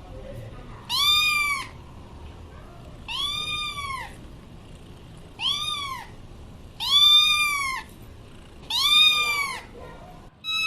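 Domestic cat meowing repeatedly: about five long meows roughly two seconds apart, each rising then falling in pitch, with another starting right at the end.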